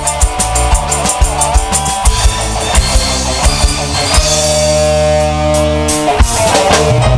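Burok troupe's accompanying band playing upbeat dance music with a quick, steady drum beat under a melody; about four seconds in the drumming thins and long held chords take over.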